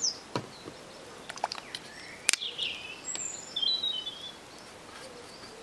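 Birds chirping in short high calls in the background, with a sharp click a little over two seconds in and a few lighter taps as plastic paint bottles are handled on the table.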